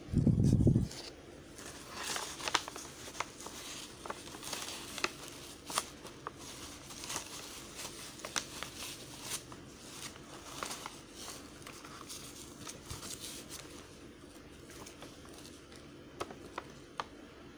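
Paper rustling and crinkling with many small irregular clicks and taps as hands fold and press craft paper. A loud low thump at the very start.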